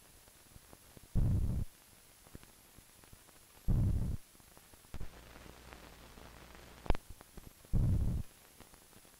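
Soundtrack of low rumbling pulses, each about half a second long, repeating roughly every two and a half seconds. Midway, a quieter steady low hum lasts about two seconds and ends in a single sharp click.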